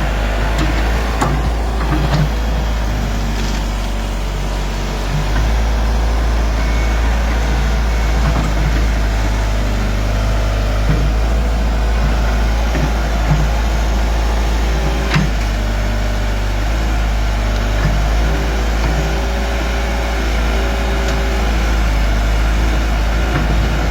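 Hydraulic excavator's diesel engine running steadily, its note dropping slightly early on and picking up again about five seconds in as the machine takes load, with a few sharp knocks from the digging work.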